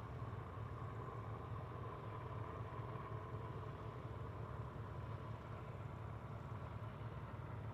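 Faint, steady engine rumble with a thin steady whine above it, from distant traffic at an airfield.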